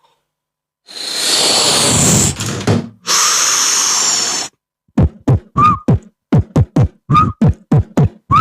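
Beatboxed mouth sound effects. Two long hissing noises are followed, from about five seconds in, by a quick run of short, punchy kick-drum-like mouth hits at roughly four a second, some topped with a brief high tone.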